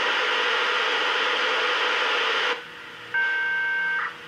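Aiwa AR-158 portable radio's speaker on the unsquelched VHF public service band, receiving a data transmission: a loud hissing burst lasting about two and a half seconds that cuts off sharply, then after a short gap a steady chord of high tones for about a second.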